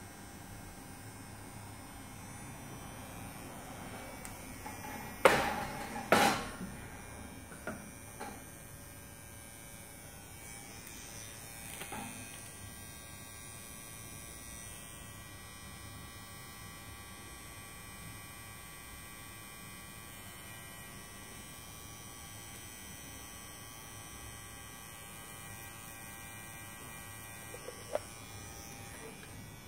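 Permanent-makeup tattoo pen running with a steady electric buzz while it works pigment into an eyebrow. Two loud knocks come about five and six seconds in, with a few fainter taps later.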